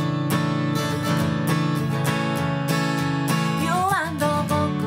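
Acoustic guitar strummed in a steady rhythm, with a woman's voice starting to sing about four seconds in.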